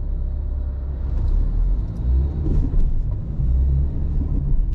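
Low, steady rumble of a car's engine and tyres heard from inside the cabin while it drives.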